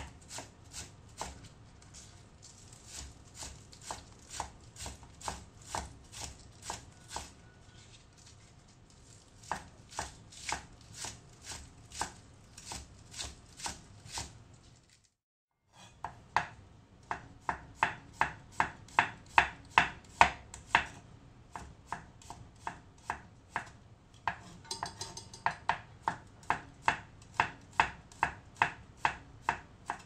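Kitchen knife chopping green onions on a wooden cutting board in steady strokes about twice a second. After a short break it slices garlic cloves on the board with louder, quicker strokes, about three a second.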